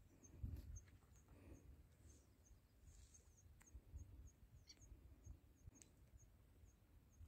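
Near silence: faint outdoor background with a low rumble, a regular high chirp about twice a second, and a few small clicks.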